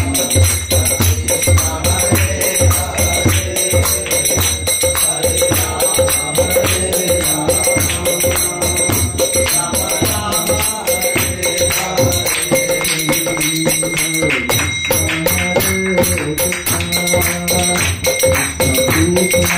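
Devotional kirtan music: a mridanga drum beats a steady rhythm under metallic, bell-like ringing and sustained melodic tones.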